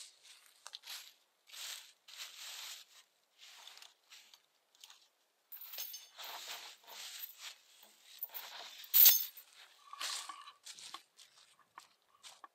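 Footsteps crunching through dry fallen leaves in an irregular walking rhythm, with one sharp, loud crack about nine seconds in.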